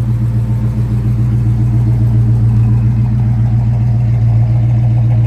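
1969 Plymouth Road Runner's 440 big-block V8 idling steadily through its dual exhaust, growing a little louder toward the end.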